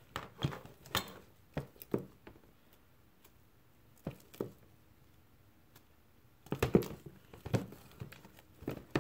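A sticky mixture of white school glue, shaving cream and foaming body wash being stirred in a plastic tub, giving a series of short clicks. A quiet stretch in the middle, then a quick flurry of them near the end.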